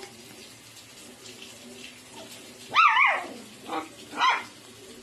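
A dachshund puppy giving three high-pitched yelps. The first, just past the middle, is the loudest and longest and wavers in pitch. The other two are short and come close together.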